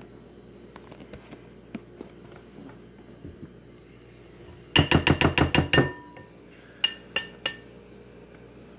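A fast run of about ten sharp knocks on a hard kitchen object, with a slight ring, then three more knocks spaced about a third of a second apart a second later.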